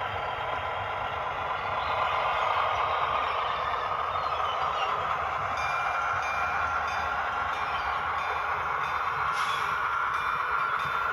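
Model locomotive running sounds from its Soundtraxx Tsunami2 sound decoder as the little Gn15 train pulls away: a steady, even rushing sound, with faint high ringing tones joining about halfway through.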